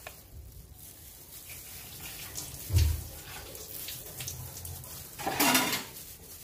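Glass noodles being lifted and turned over in a stainless steel bowl: soft handling noise, a low knock about three seconds in, and a brief louder rustling scrape about five seconds in.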